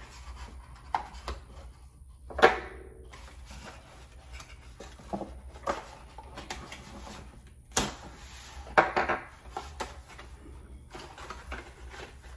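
Folded cardboard packaging being handled and pulled open by hand: scattered clicks, taps and short rustles and scrapes, with sharper crackles about two and a half seconds in and again around eight and nine seconds.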